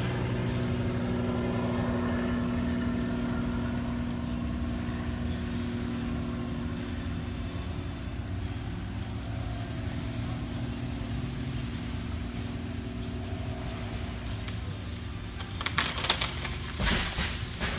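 An engine running steadily and slowly fading, then near the end a burst of loud cracking and splintering wood lasting about two seconds, as of a tree limb breaking and crashing down.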